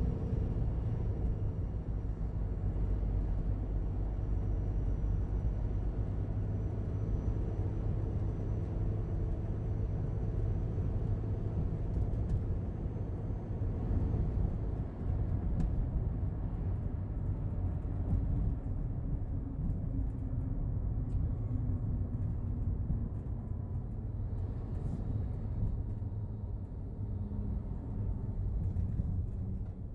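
Daihatsu Hijet Cargo kei van engine running, a steady low rumble with a few faint clicks.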